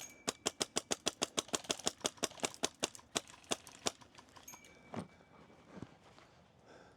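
Airsoft rifle, most likely the player's own HPA-powered Wolverine MTW, firing a rapid string of about two dozen shots at roughly seven a second, stopping about four seconds in. A single thump follows about a second later.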